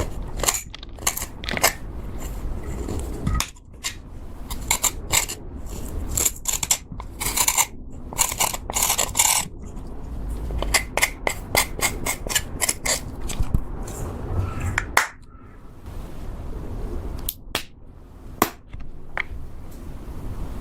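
Slime being worked and mixed, with dense runs of sharp crackles, pops and squelchy clicks from air pockets bursting, broken by short scraping stretches and a couple of brief quieter pauses.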